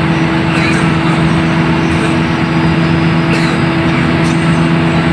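Hino AK8 bus's diesel engine and road noise heard from inside the cab at steady highway cruising speed: an even drone at constant pitch with no revving. A few faint clicks or rattles come through now and then.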